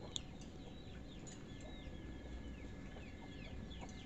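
Faint bird chirping: short falling peeps, several a second, with a thin steady high tone joining about a second in and a few soft clicks.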